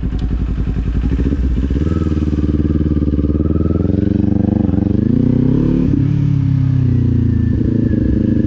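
2024 Kawasaki Z400's parallel-twin engine running under way. Its revs climb for a few seconds, fall away sharply about six seconds in, then hold steady at lower revs.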